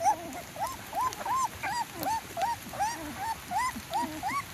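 Young puppies whimpering and crying: a quick, steady run of short high cries, about three a second, each rising and then falling in pitch.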